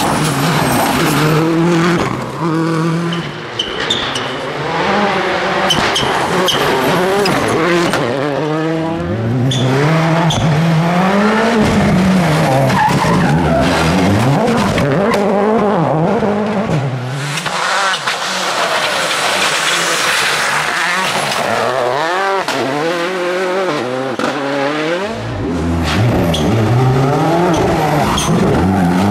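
First-generation World Rally Cars, Ford Focus WRCs among them, running their 2.0-litre turbocharged four-cylinder engines hard on a stage. The engine note rises and falls repeatedly through gear changes, over several passes one after another.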